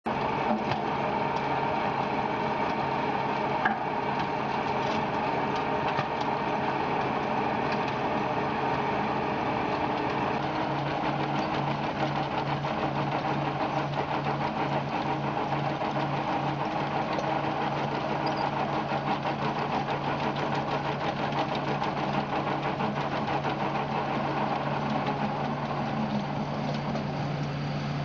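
Wheeled tractor driving a chain trencher: the diesel engine runs steadily under load over the rapid clatter of the digging chain cutting soil. The engine note changes about ten seconds in.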